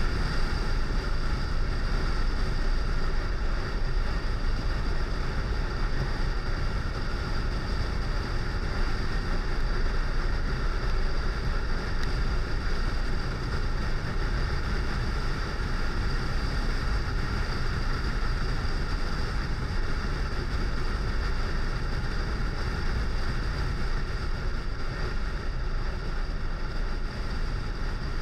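Motorcycle engine running at a steady speed under strong wind noise on the microphone, as heard while riding.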